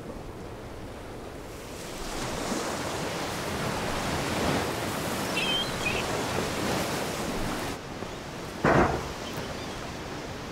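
Steady outdoor rushing noise that swells about a second and a half in and eases off near eight seconds, with one short, loud thud about nine seconds in.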